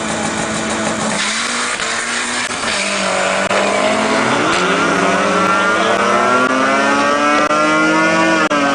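A vehicle engine accelerating at the drag strip. Its pitch climbs steadily for about five seconds, then drops sharply right at the end.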